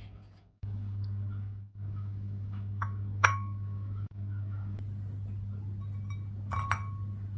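Two sharp clinks of glass or dishware, about three seconds apart, each ringing briefly, over a steady low hum.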